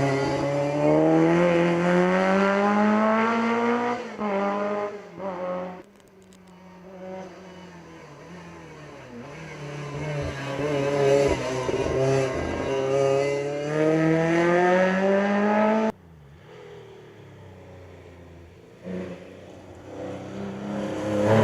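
Classic rally car engines accelerating hard. There is a long climb in pitch, a sudden drop about six seconds in, then another long climb that cuts off suddenly around sixteen seconds in. A quieter engine builds up again near the end.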